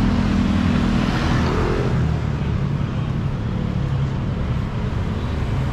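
Steady motor vehicle engine and road traffic noise, a low engine hum whose pitch drops about a second or two in.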